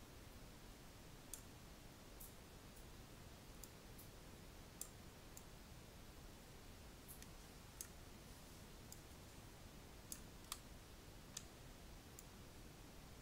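Faint computer mouse clicks, a dozen or so at irregular intervals, over low room hiss.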